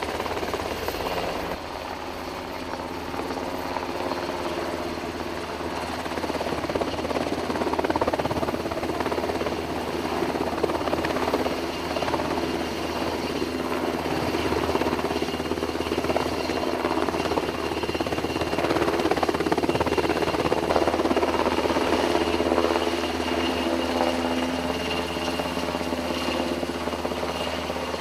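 MH-60S Seahawk helicopter's twin turbines and rotor running steadily as it hovers low over water, a continuous mechanical hum that swells a little partway through.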